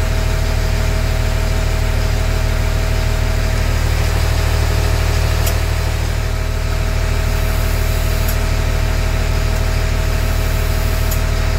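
LMTV truck's diesel engine idling steadily, heard from inside the cab, building air pressure to refill the drained wet tank for the central tire inflation system. Three faint ticks come about three seconds apart in the second half.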